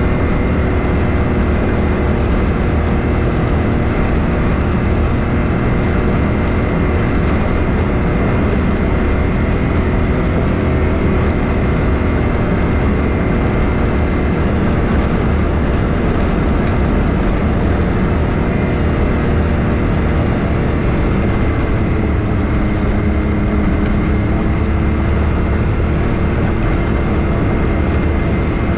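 Can-Am Maverick X3 side-by-side's turbocharged three-cylinder engine running at a steady cruise, with a faint steady whine above it. Its note drops slightly about three-quarters of the way through.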